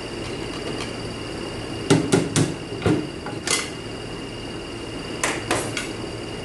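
Metal automatic-transmission parts clinking and knocking as they are handled and set down: a run of three sharp clinks about two seconds in, two more single knocks shortly after, and a quick cluster of lighter clinks about five seconds in.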